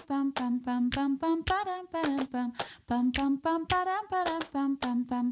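Background music: a bouncy tune of short, separate notes, about three or four a second.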